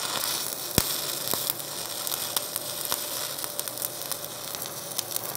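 Shielded metal arc (stick) welding: a 1/8-inch copper-nickel electrode burning on copper-nickel plate at 100 amperes. The arc gives a steady hiss, crackling with frequent small clicks, and one sharper pop about a second in.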